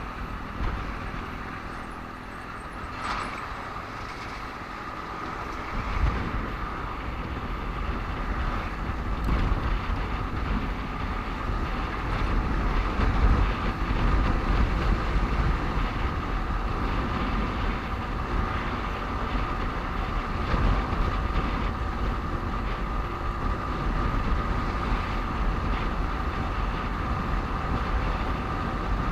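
Road noise from a motorcycle riding through traffic: a steady engine and tyre rumble with wind buffeting the microphone, and a thin steady whine running underneath.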